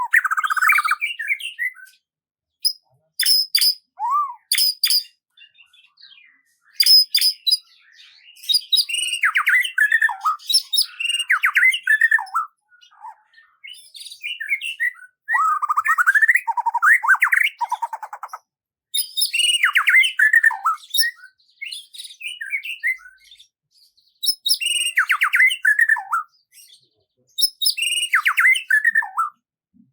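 A songbird singing: a string of varied phrases of sharp high notes, trills and warbling notes, each a second or two long with short pauses between.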